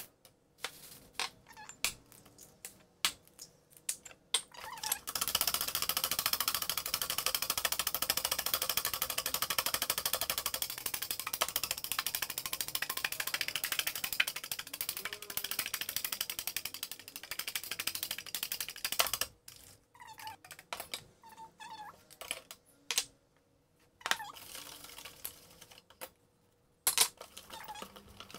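Wire whisk beating eggs and sugar in a stainless steel bowl: a fast, continuous clatter of the wires against the metal, starting about five seconds in and stopping after about fourteen seconds. Scattered clinks and taps of the whisk and bowl come before and after.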